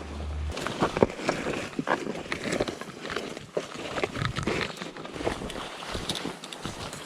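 Footsteps on a trail with brush rustling: a run of irregular crunches and swishes.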